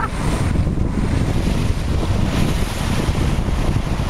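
Wind buffeting the microphone on a moving car: a loud, steady rush with a deep rumble underneath.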